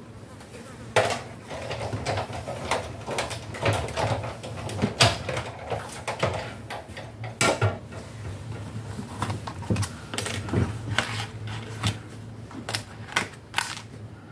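Clicks, knocks and rustles of cardstock and metal cutting dies being handled and run through a die-cutting machine, over a low steady hum.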